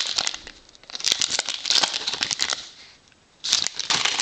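Foil wrapper of a baseball card pack crinkling and tearing as it is pulled open by hand, in three bursts of crackle.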